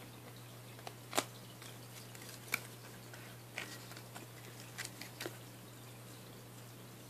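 A Ballistic SG MAXX phone case's hard plastic parts and clear plastic packaging being handled, giving about five sharp clicks and taps spread over several seconds, over a steady faint low hum.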